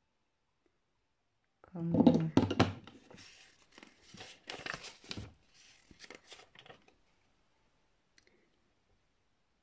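Folded paper instruction leaflet being unfolded and handled: irregular rustling and crinkling for about five seconds, loudest about two seconds in, then a faint tick near the end.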